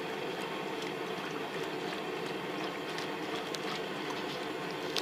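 Steady bubbling of a hot dye bath under a low, even hum, with scattered small clicks.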